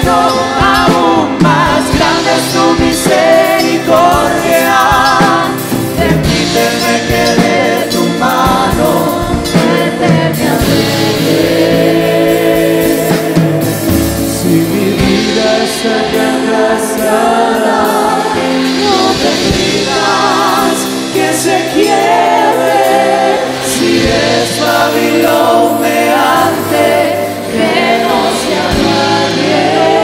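Live worship band playing, with a drum kit and crash cymbals driving it and voices singing long, wavering notes over the music.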